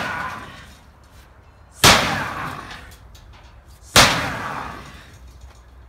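Sledgehammer striking a sheet-steel shed twice, about two seconds apart, each blow a loud metallic clang that rings and fades over a second or so; it opens on the fading ring of a blow just before.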